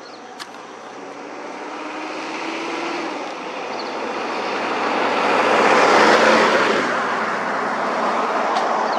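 A motor vehicle passing close by on the road: a rush of tyre and engine noise that swells to a peak about six seconds in and then stays nearly as loud.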